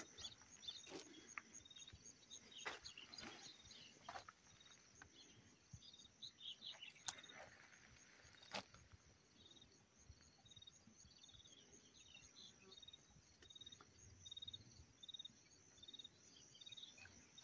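Faint insects chirping: a steady rapid high trill with a row of short repeated chirps, and a few scattered sharp clicks.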